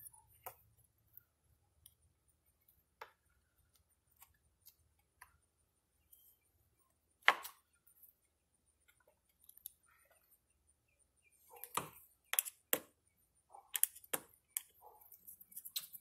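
Sparse light clicks and taps of a metal door striker plate and its screw being handled and fitted against a wooden door jamb. There is one sharper knock about halfway through and a quick run of knocks near the end.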